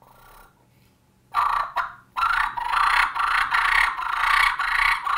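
Match Maker three-reed latex diaphragm turkey mouth call with a bat-wing cut, blown as a hen turkey. After a quiet second, two sharp cuts about half a second apart run into a fast, raspy string of notes lasting about three seconds, like a hen's cutting and cackle.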